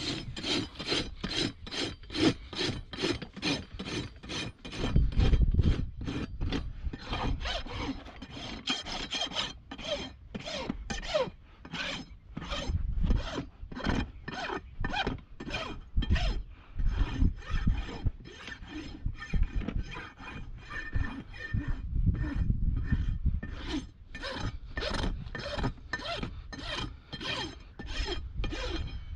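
Hoof rasp filing a hoof wall: a steady run of quick scraping strokes of the rasp across the horn, about two a second, with a few low rumbles now and then.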